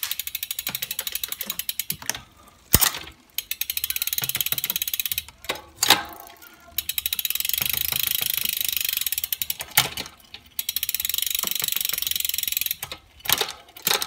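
Road bike drivetrain with an 11-speed 40-tooth mountain bike cassette, cranked by hand: the chain runs over the cassette with dense rapid ticking in several stretches, broken by a handful of sharp clicks as the rear derailleur shifts the chain down from the largest cog toward the smaller ones.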